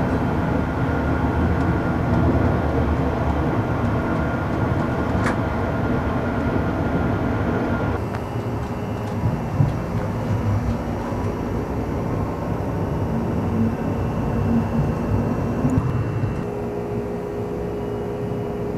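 Steady running noise inside a third-generation ICE high-speed train: a continuous rumble of wheels on rail with rushing noise. The sound changes abruptly about eight seconds in and again about sixteen seconds in, and a faint steady hum comes in near the end.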